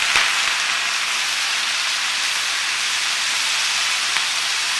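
Soy sauce sizzling in a hot wok of browned pork pieces: a steady hiss as the liquid boils off.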